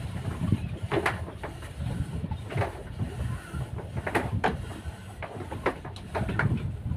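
Low rumble of wind buffeting the microphone on a boat deck, with a dozen or so sharp, irregular knocks and clatters.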